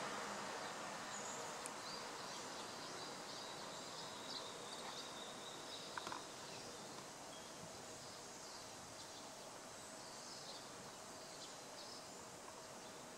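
Faint outdoor ambience: a steady hiss that fades slightly, with scattered short, high chirps, likely distant birds or insects.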